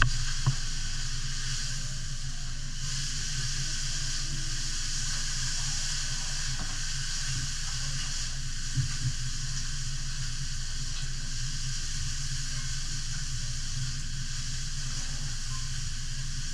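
Kobe beef steak sizzling on a steel teppanyaki griddle, a steady hiss, over a low steady hum. A few sharp metal clicks from the knife and spatula on the griddle come near the start and again about nine seconds in.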